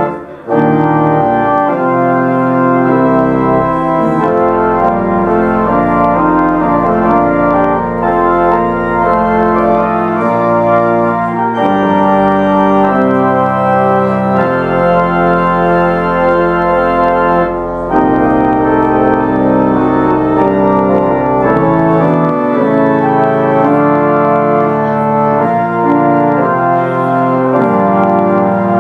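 Organ music: a postlude of held chords that change every second or two, with a short pause just after the start.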